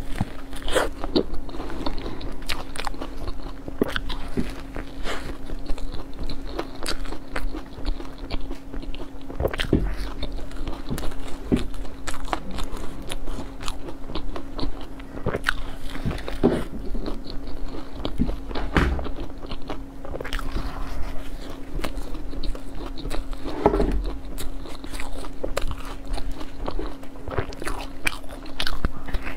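Close-miked biting and chewing of crisp-topped cream puffs: crunchy crackles from the crumbly crust and softer chewing, with a few louder crunches. A steady low hum runs underneath.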